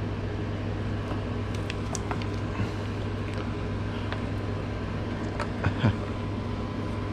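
Steady low background hum with faint scattered clicks and handling noises from hands working a radiator hose and its clamp into place on a motorcycle, and one brief louder knock a little before six seconds in.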